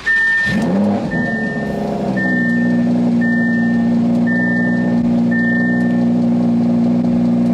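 Audi R8 GT's V10 engine starting with a rev flare, then settling into a steady high idle. A high warning chime beeps six times, about once a second, over the first six seconds.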